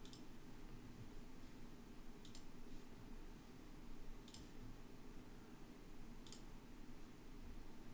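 Four faint computer mouse clicks, about two seconds apart, over a low steady room hum.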